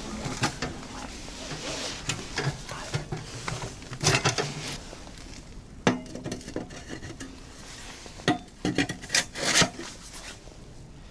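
Sheet-steel pellet stove and its stainless chimney pipe handled and fitted together: metal clanks, knocks and scraping, with a quick run of knocks near the end.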